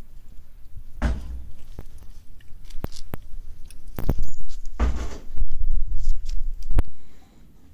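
Cats eating from a metal bowl, with a few sharp clicks and several louder knocks and rustles; the loudest come about a second in and again around four to five seconds in.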